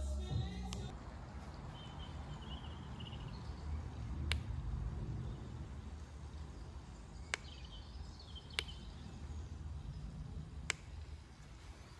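Quiet room ambience: a low, steady rumble with four short sharp ticks spread through it and some faint high chirps.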